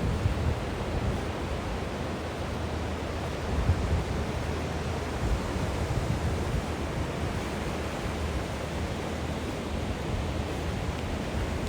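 Steady rush of ocean surf, with wind buffeting the microphone in low, uneven rumbles.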